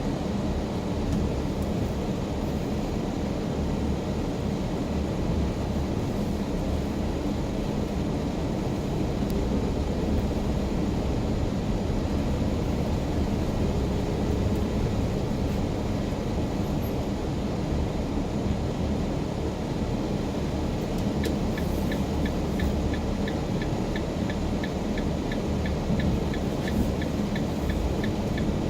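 Steady road and engine rumble of a car driving, heard from inside the cabin. About three-quarters of the way through, a regular light ticking starts, about two ticks a second.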